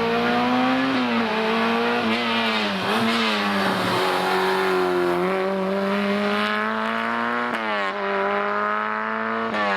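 A historic rally car's engine running hard at high revs. The pitch drops and climbs again several times as the driver lifts and changes gear, then rises steadily until a sharp upshift about three quarters of the way through.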